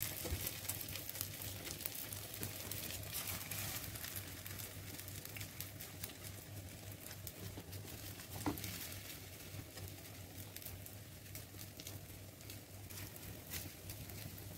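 Crepe-wrapped cabbage parcels sizzling gently in oil in a frying pan: a soft, continuous crackle of small pops, with one sharper tap about eight and a half seconds in and a low hum underneath.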